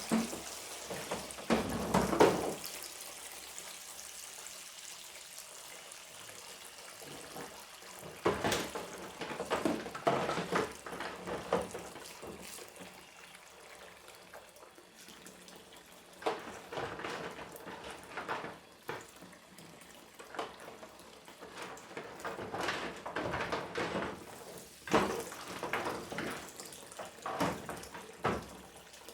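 Washing up at a kitchen sink: a tap running steadily while dishes and kitchen utensils clatter and knock against each other in irregular spells, the loudest knocks about two seconds in.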